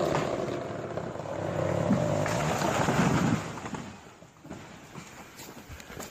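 A large tree falling and crashing down, branches breaking. The crash is loudest around two to three seconds in and stops abruptly about three and a half seconds in, leaving quieter rustling and a few snaps.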